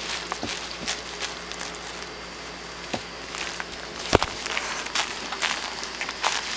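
Scuffling, rustling and scattered light knocks as an Italian Greyhound tugs and wrestles a plush duck toy, with one sharper knock about four seconds in.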